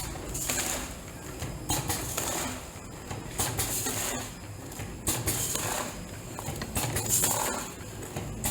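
Vertical form-fill-seal packaging machine bagging leaf tea in polypropylene film, working in a steady cycle: a short hissing rustle with light clicks about every one and a half to two seconds, five cycles in all.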